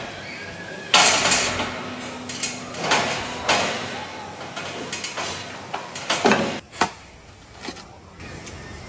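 Metal scaffolding being handled: a series of clanks, knocks and scrapes, the loudest about a second in and another cluster around six seconds in.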